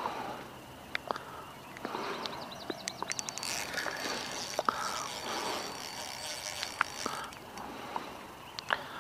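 Spinning reel working against a hooked carp: irregular clicks and a whirring of the reel's gears and drag, with a quick run of clicks about three seconds in, as line is reeled in and pulled off. Wind buffets the microphone underneath.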